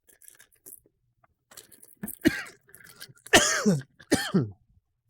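A man coughing three times: one short cough about two seconds in, then two longer, louder coughs close together near the end, each trailing off lower in pitch.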